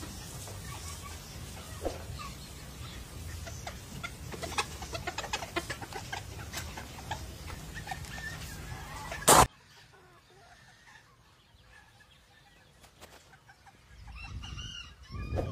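Rosecomb bantam chickens clucking, with many short clicks and peeps over a low background rumble. About nine seconds in there is a loud, sharp knock, after which the sound drops much quieter, with a few faint calls near the end.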